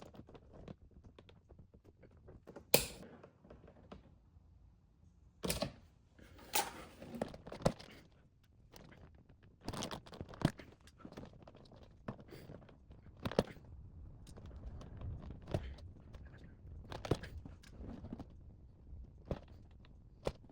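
Irregular clicks, taps and knocks of small tools and wiring being handled, with a few sharper knocks scattered through.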